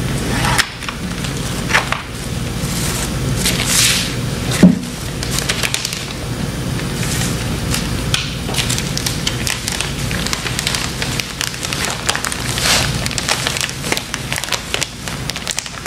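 Plastic vacuum-sealer bag crackling and rustling as it is handled, with one louder thump about a third of the way in.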